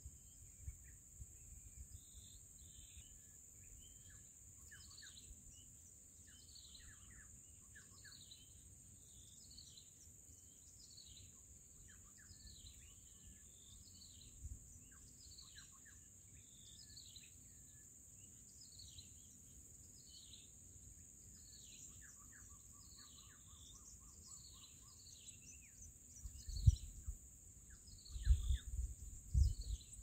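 Shrike chicks in the nest giving short, high, downward-slurred begging calls over and over, over a steady high insect drone. A quick run of lower notes comes about three-quarters through, and loud low thumps start near the end.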